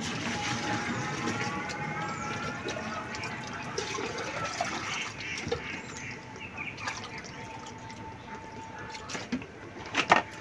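Water pouring into a container, rising in pitch as it fills, most likely the chickens' drinker being filled with the medicated water. There is a short sharp knock near the end.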